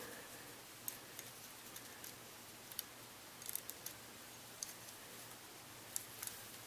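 Faint, scattered light clicks and ticks of small metal tools and parts being handled, about half a dozen spread over the few seconds.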